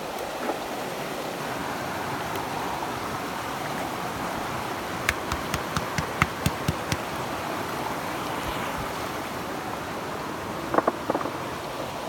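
River water rushing steadily. About halfway through comes a rapid run of about nine sharp clicks over two seconds, and a few more near the end.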